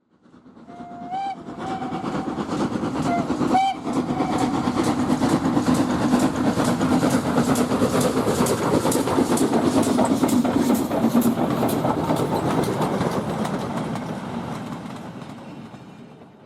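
Steam train: two short whistle blasts, then the train running with a fast, even clickety-clack of wheels over rail joints, swelling and then fading away near the end.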